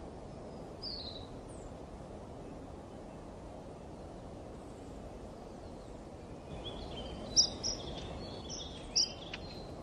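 Birds chirping over a steady low background rumble: one short high chirp about a second in, then a cluster of quick high chirps near the end.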